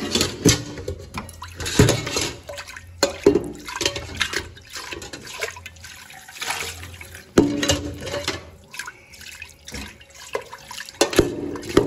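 Tap water running and splashing into a stainless steel pot and through a mesh strainer in a metal sink, with repeated clanks and knocks of the pot against the sink as it is rinsed.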